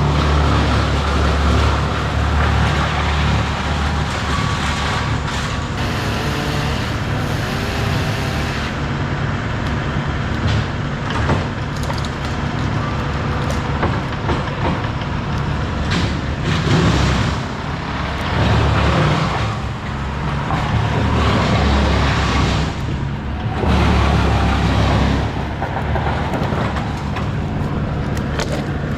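Diesel engines of tree-work machinery, a wood chipper and a mini loader, running steadily. Their drone swells louder several times, with scattered sharp cracks and knocks from branches being handled.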